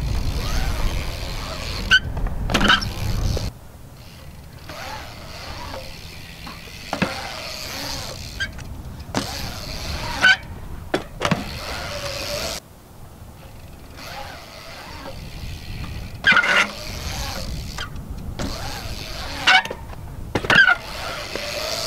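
BMX bike riding on a concrete skatepark: tyres rolling on the concrete, with several sharp knocks from landings and the bike striking the ramps. Wind rumbles on the microphone in the first few seconds, and the sound changes abruptly a couple of times between clips.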